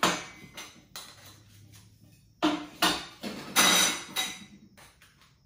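Metal frame tubes clinking and knocking against each other and the tabletop as they are handled and fitted together, each knock ringing briefly. One knock comes at the start and a cluster of four or five comes about two and a half to four seconds in.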